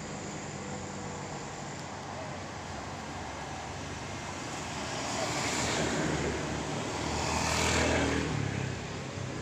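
Road traffic passing: a steady hum of vehicles, with two passing vehicles swelling up and fading, one about five and a half seconds in and a louder one near eight seconds.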